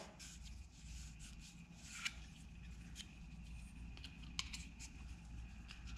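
Faint handling sounds: scattered small clicks and light rubbing over a steady low hum.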